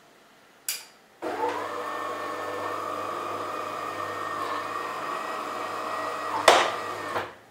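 DeLonghi Magnifica ESAM 4500 bean-to-cup coffee machine running part of its cappuccino cycle. A short click comes first, then about six seconds of steady mechanical running with a low hum and a higher squeak, a sharp click near the end, and a sudden stop. The owner puts the squeak down to fresh grease on the brew unit's rear spindle still spreading, and it is easing.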